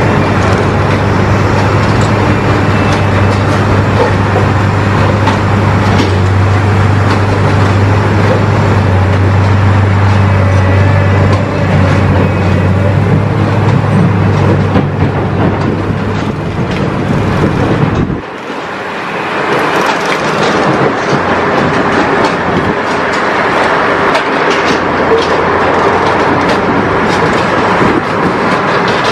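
Heavy track-laying machine running loudly and steadily with a low hum. About eighteen seconds in the hum drops away suddenly, leaving a rougher, higher mechanical noise with fine rattling.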